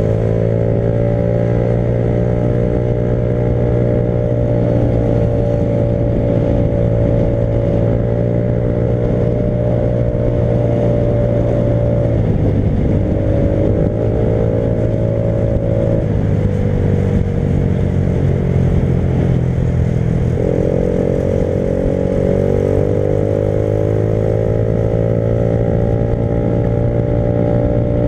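Motorcycle engine running under way, holding a steady pitch and then stepping down and back up several times through the middle as the speed or gear changes, over a steady rush of noise.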